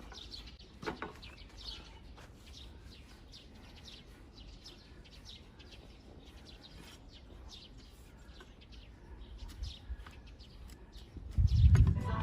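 Small birds chirping steadily in the background, with a couple of faint knocks about a second in. Near the end a short, loud low rumble.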